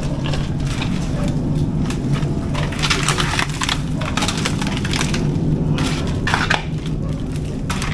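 Broken wooden boards being pushed and shifted in a doorway: a string of irregular cracking and scraping noises over a steady low hum.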